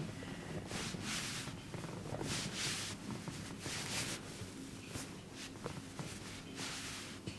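Hands rubbing in slow, repeated massage strokes: a soft swishing stroke about every one and a half seconds, over a low steady hum.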